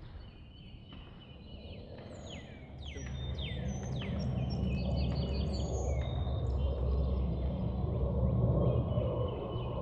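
Small birds chirping and singing, many short falling chirps, over a low outdoor rumble that grows louder about three seconds in.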